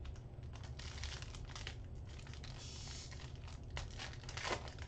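Foil wrapper of a trading-card pack crinkling and tearing as it is ripped open by hand: a dense run of small crackles, with a louder rip about three seconds in.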